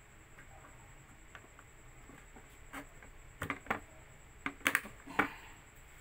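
A HyperX memory stick being pushed into a motherboard RAM slot: a run of sharp plastic clicks and knocks in the second half, the loudest two near the end, as the stick seats and the slot's latches snap shut.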